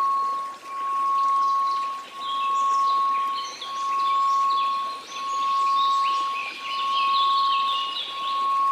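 A steady 1098 Hz pure tone, swelling and fading about once every second and a half, over a faint hiss, with many short high chirps throughout.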